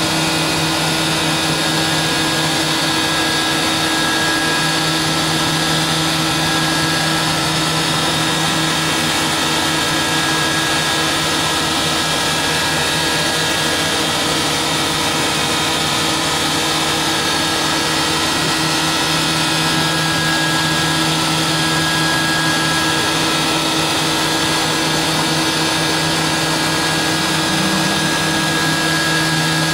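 Fadal CNC vertical machining center milling: the spindle runs with a steady hum and a few held tones over an even hiss of cutting and coolant spray.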